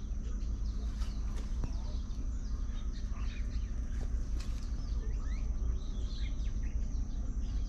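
Birds chirping in many short calls over a steady low rumble.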